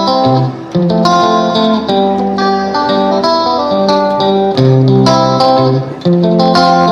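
Background music led by a plucked guitar playing a melody in short notes.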